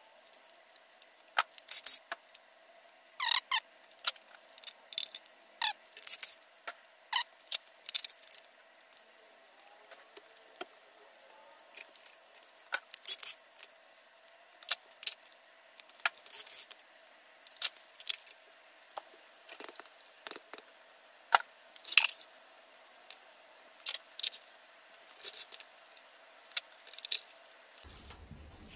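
Irregular sharp metallic clinks and clanks of hand tools, sockets and loose bolts and caps against a bare 4.8 L LS V8 engine block during teardown. The clinks come singly or in quick clusters, with short pauses between them.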